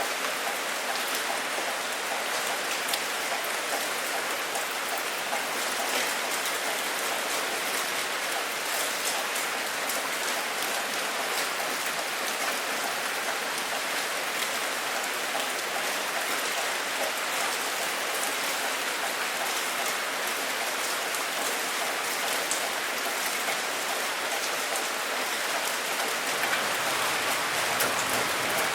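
Steady rain falling on a surface, an even hiss dotted with fine individual drop ticks.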